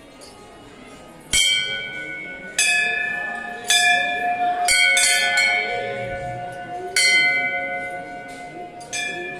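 Hanging brass temple bells struck by hand about seven times, one to two seconds apart. Each clang rings on and overlaps the next, with different bells sounding at different pitches.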